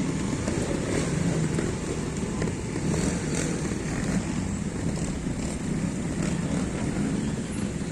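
Trial motorcycle engine running, its level rising and falling throughout.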